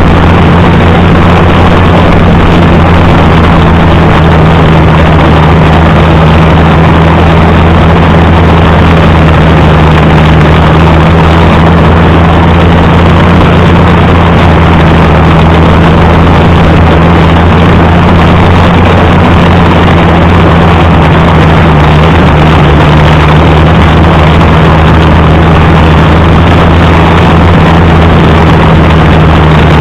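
Allis-Chalmers D19 tractor engine running steadily at an even speed, loud and close.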